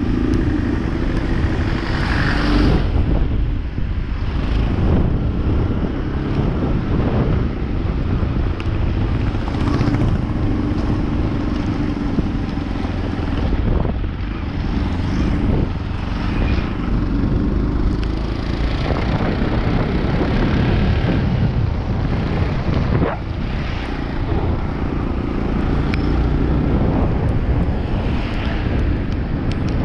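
Bajaj Pulsar NS motorcycle under way: engine running steadily with heavy wind noise on the microphone.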